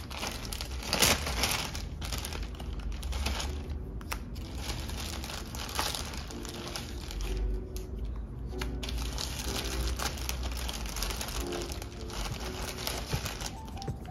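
Clear plastic bags crinkling and rustling as hands sort sticker packs and sticker sheets, with scattered small clicks of handling, the loudest about a second in.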